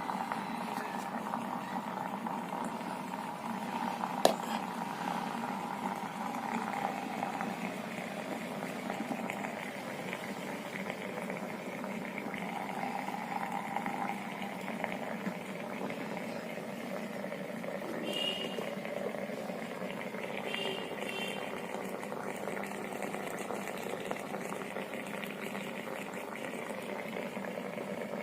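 Electric steam vaporizer boiling its water with a steady bubbling hiss. A single sharp click about four seconds in.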